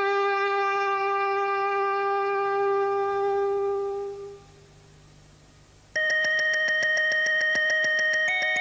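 Music for a stage ballet. A long held note fades away over about four seconds and is followed by a short quiet gap. Then a steady, bell-like chord starts suddenly with a fast, even ticking over it, and steps up in pitch near the end.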